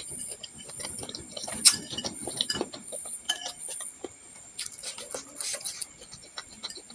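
Close-up eating of bakso: a spoon clinking against the bowl at irregular moments, with small mouth noises in between. The sharpest clink comes about a second and a half in.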